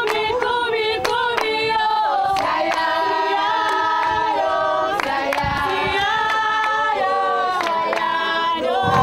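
A group of voices singing a capella in harmony, several held notes at once, with hand claps.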